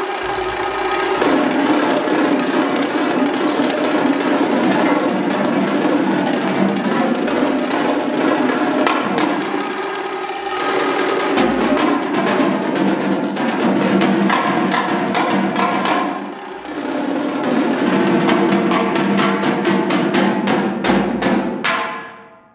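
Two sets of marching tenor drums (quads) played as a duet with sticks: fast, continuous patterns and rolls moving across the tuned drums. The playing ends together near the end.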